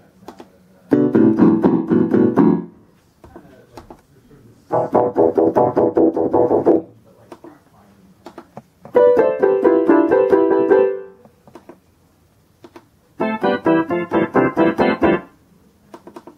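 Concertmate-1000 electronic keyboard playing four short runs of quick notes, each about two seconds long, with brief pauses between them. Each run is in a different built-in instrument voice.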